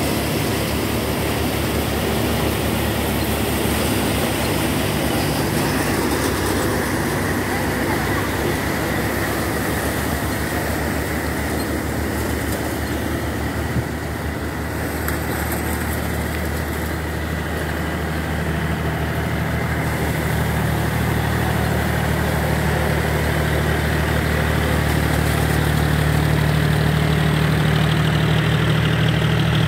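Agrimax five-fan paddy thresher running under load, driven by a John Deere 5045D tractor's diesel engine: a steady low engine hum under a broad rushing whir from the threshing drum and fans. The engine hum grows louder over the last few seconds.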